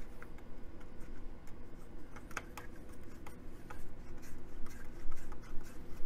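Small irregular clicks and light rubbing as a hand screwdriver drives a screw into a plastic mounting leg, fastening an RC nitro truck's fuel tank. A faint steady hum lies underneath.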